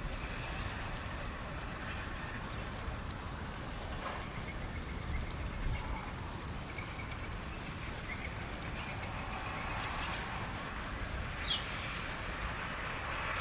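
Outdoor ambience of steady hiss and low rumble, with a few short bird chirps scattered through, the clearest a quick high sweep about eleven seconds in.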